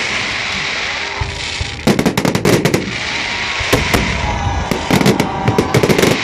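Festive fireworks salute: clusters of rapid sharp cracks and bangs about two seconds in, again near four seconds and near the end, over a steady background hiss.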